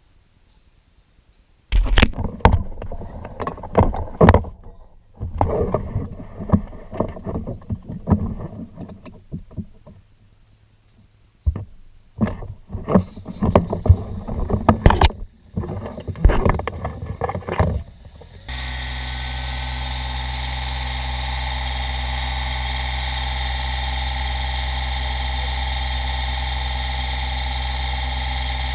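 Irregular scraping and knocking for about sixteen seconds, with a short pause in the middle. This is followed by an engine that starts abruptly and keeps running at a steady speed.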